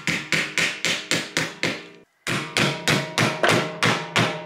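A hammer tapping a folded-over Band-It strap buckle tab flat, a rapid run of sharp metallic strikes, about five a second, each with a short ring. The strikes pause briefly about two seconds in, then resume.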